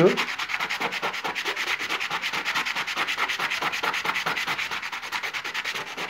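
A rough stone rubbed by hand back and forth on wet sandpaper, a rapid even scraping at about five strokes a second, grinding a face flat to open the stone and show its pattern.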